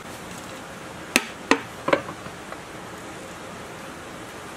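Three sharp metal knocks, each about a third of a second after the last, as a hammer strikes the rusted casing of a scrapped small diesel engine to free its stuck side cover.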